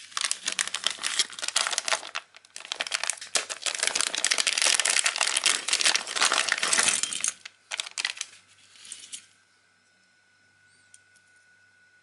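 Silver foil pouch crinkling and rustling as it is handled and opened, continuous for about seven seconds, then a few shorter rustles that stop about nine seconds in.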